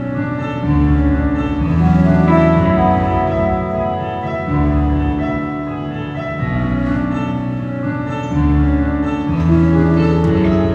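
Music at sound check: sustained layered chords over a low bass line that moves to a new note every second or two, with no drum hits.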